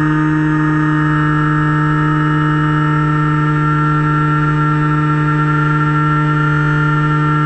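Finwing Penguin RC plane's electric motor and propeller running steadily in flight: a loud, even hum with a higher whine above it that wavers slightly in pitch.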